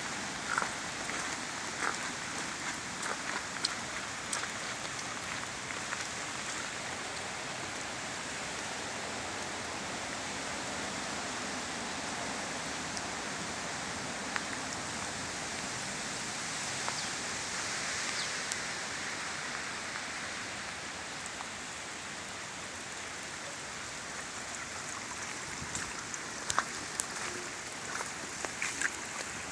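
Steady rain falling and pattering on surfaces, with scattered sharp drips and ticks, more of them near the start and the end.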